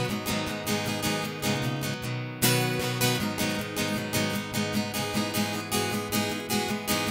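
Acoustic guitar strummed in a steady rhythm with no singing: an instrumental passage between chorus and verse of the song.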